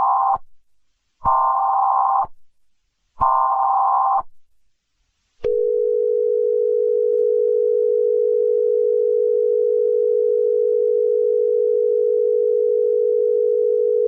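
Emergency Alert System-style signal: the end of one buzzing electronic data burst, then two more bursts of about a second each, then a long, steady, low alert tone that starts about five seconds in.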